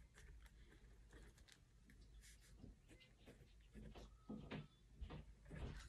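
Near silence with faint rustles and light taps of paper being handled, from cash bills and a budget binder's envelope.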